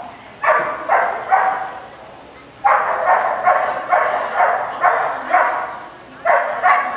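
Shetland sheepdog barking repeatedly as it runs, about a dozen sharp barks in three quick runs, each echoing in a large indoor arena.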